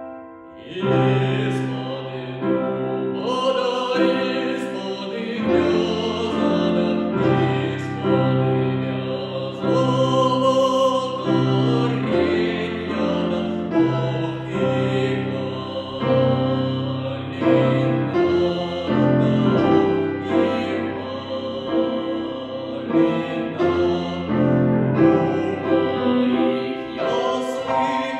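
A teenage boy singing in classical, academic style, accompanied on a grand piano. The voice comes back in about a second in, after a brief pause, and holds sustained sung phrases over the piano.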